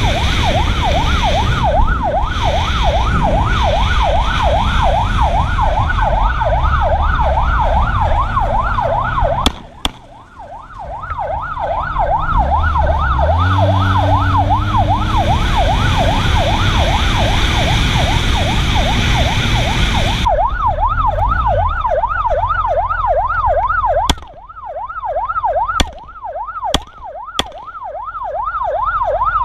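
Emergency-vehicle siren in a fast yelp, sweeping up and down about four times a second, over engine and road noise. It breaks off briefly about a third of the way in and again near the end, and the road noise under it stops suddenly about two-thirds through.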